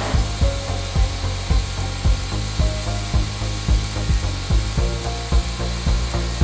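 TIG welding arc hissing and sizzling steadily, over background music with a steady beat of about two low thumps a second.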